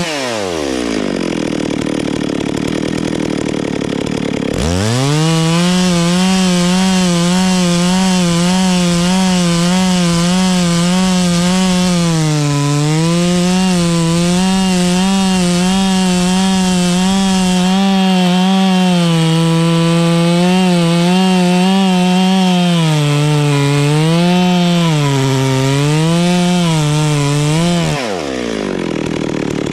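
Two-stroke chainsaw engine: it drops to idle at the start, revs back up fast at about four and a half seconds, and runs at high speed with its pitch wavering and dipping as the chain cuts into wood. It drops back to idle near the end.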